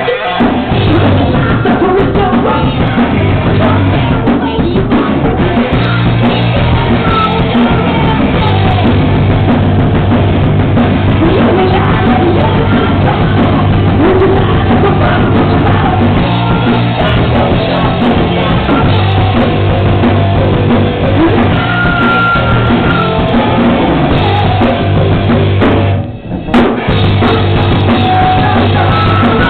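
Live rock band playing loud, with singing over drum kit and guitars. Near the end the band stops for a moment, then comes back in.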